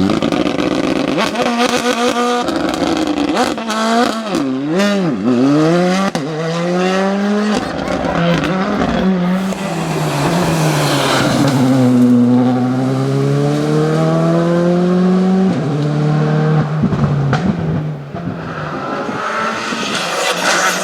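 Rally car engine revving hard through the gears: the pitch climbs and drops again and again with the shifts and lifts. There is a run of sharp cracks about four to five seconds in, and around the middle a long dip in revs under braking before they climb again.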